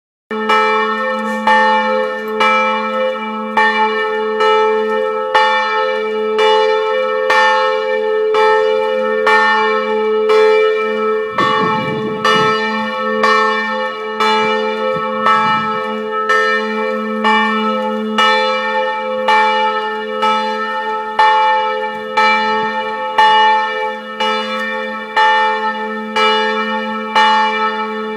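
Church bells of the Chapelle Notre-Dame du Haut ringing, struck in an even rhythm a little more than once a second, with the low hum of the bells sounding on steadily between strokes.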